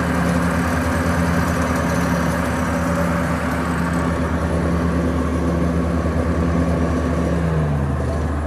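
Kubota F3060 ride-on mower's diesel engine running steadily at raised throttle. Near the end its speed drops noticeably.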